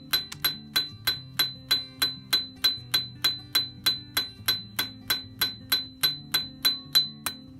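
Blacksmith's hammer striking hot steel on an anvil in a steady rhythm, about four blows a second, each with a high ring from the anvil; the blows stop near the end. The hammer's peen is driving veins into a forged steel leaf.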